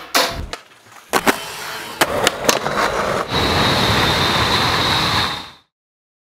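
Skateboard sounds: a series of sharp cracks and knocks of the board popping and landing, then about two seconds of steady scraping noise with a high whine, which cuts off suddenly.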